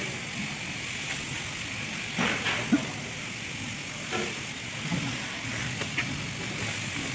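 A few short metallic clicks and knocks as a steel timing gear is handled and fitted onto an engine's gear housing, over a steady hiss.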